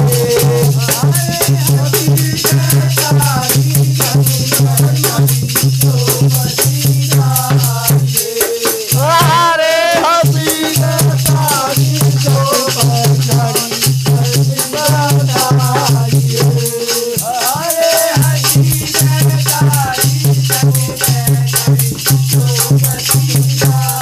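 Group Holi folk song performance: men's voices singing over a constant shaking rattle and a steady low pulsing beat. A high rising voice with vibrato rings out near the middle.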